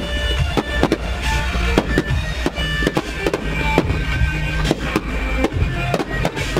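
Fireworks shells and comets going off in a musical fireworks display: sharp bangs and crackles, about one or two a second, over loud music played with the show.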